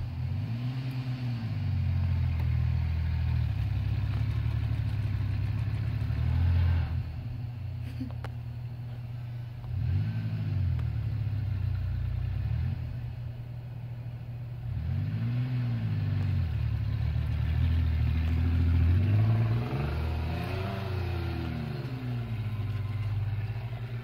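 Engine of a 1998 Ford Ranger 4x4 pickup revving up and down as the truck is driven through deep snow. The engine note rises and falls several times over a steady running sound.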